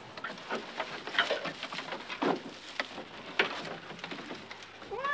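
Irregular rustling, scraping and light knocks of people clambering through a thatched roof into a dark room. A cat begins to meow at the very end.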